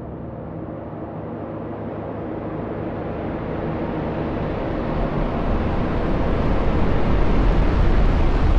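Reverse sound effect: a reversed rumble that swells steadily, growing louder and brighter as it builds toward a hit.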